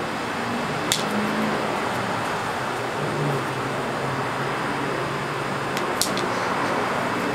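Steady outdoor background hiss with a faint low hum, broken by two sharp clicks, one about a second in and one near the end.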